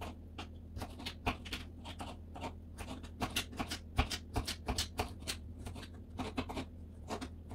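Kitchen knife chopping cucumber on a wooden chopping board: quick, regular knocks of the blade through the cucumber onto the board, about four a second.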